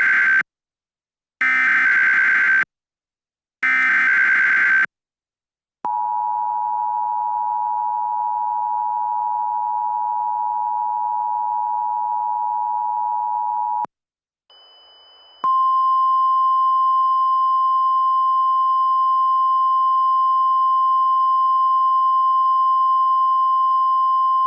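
Emergency Alert System (EAS) tones. It opens with the end of one SAME header data burst and two more bursts of warbling data tones about a second apart. Then comes the two-tone EAS attention signal (853 and 960 Hz together), held steady for about eight seconds. After a short gap and a faint hiss, a single steady 1050 Hz weather-radio alert tone starts about 15 seconds in and holds for about ten seconds.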